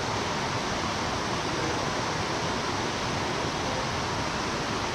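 Steady rushing of a mountain stream's flowing water, an even noise with no breaks.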